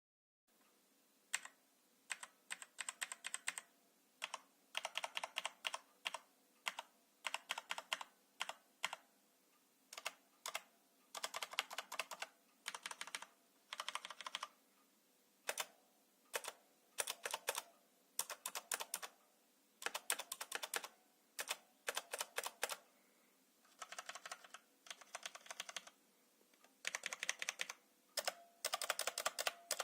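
Typing on a Connect IT CI-636 Evogear keyboard: quick runs of key clicks in bursts of a second or so, broken by short pauses and the odd single keystroke.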